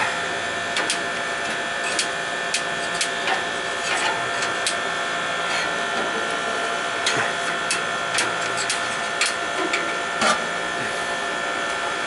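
A steady mechanical hum with irregular sharp clicks, about one every half second to a second.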